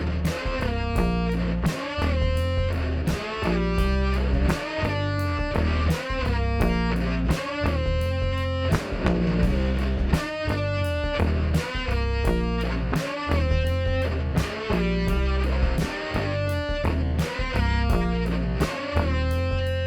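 Background rock music: electric guitar over bass and a steady drum beat.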